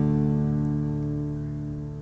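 The last chord of a song, a guitar chord ringing out and slowly fading away.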